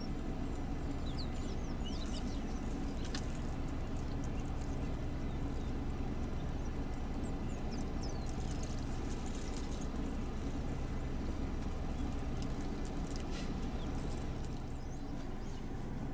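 African elephant browsing on a bush: twigs snapping and leaves rustling as it pulls at branches and chews, with a few sharp cracks. A vehicle engine idles steadily underneath, and birds chirp briefly a couple of times.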